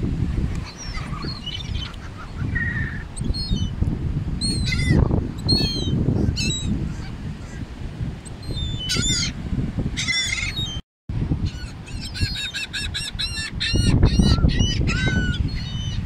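Gulls calling close by: scattered harsh, yelping calls, then a quick run of many repeated calls in the second half. A low rumble sits beneath, loudest near the end, and the sound drops out briefly just past the middle.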